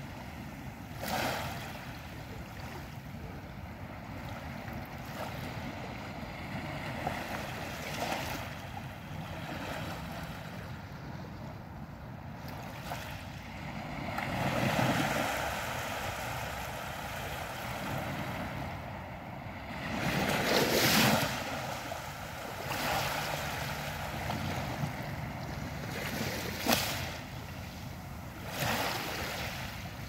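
Small waves lapping and washing onto a pebbly sand beach on a calm sea. A wash swells and fades every few seconds, and there is one short sharp slap near the end.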